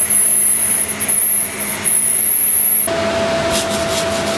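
Welding arc on the end of a stainless steel pipe, a steady hiss with a high whine, cutting off about three seconds in as the arc is stopped. A lower steady tone carries on after it.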